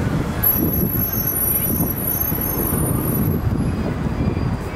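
Busy city street ambience: a steady low rumble of traffic and crowd noise. A faint high-pitched tone sounds for about three seconds, starting shortly after the beginning.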